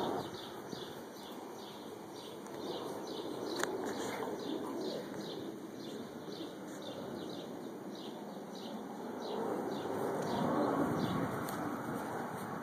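Distant rumble of Blue Angels fighter jets climbing away, swelling about ten seconds in, with a small bird chirping over it in a run of short, quick chirps.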